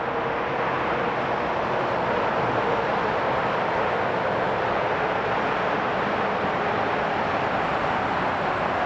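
Boeing 757-200 freighter's jet engine running at steady power during a ground engine test: a loud, even rush with a faint steady tone underneath.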